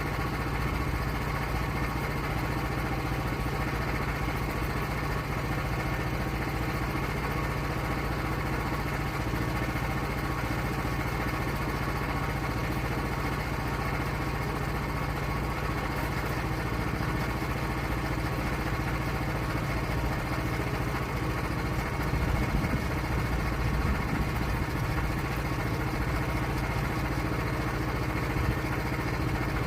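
Portable sawmill's engine running steadily at an even pitch, a little louder about two-thirds of the way through.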